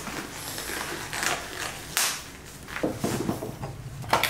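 Thin disposable plastic gloves rustling and crinkling as they are pulled on, with a few sharp plastic clicks and knocks from handling packaging, the loudest near the end.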